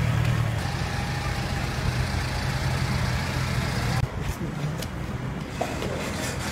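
A vehicle engine running slowly with a steady low hum, which cuts off abruptly about four seconds in. After it comes a quieter outdoor background with a few faint knocks.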